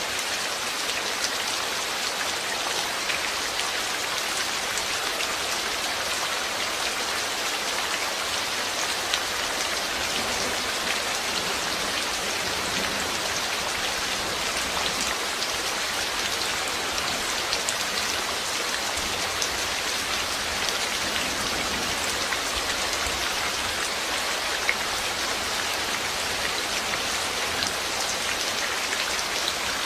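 Steady rain falling on a surface, an even hiss dotted with many small drop ticks.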